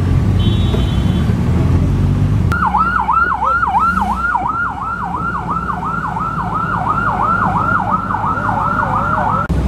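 A siren yelping, its pitch sweeping rapidly up and down about three times a second, starting a little over two seconds in and stopping just before the end. Before it, the steady rumble of the car's engine and road noise.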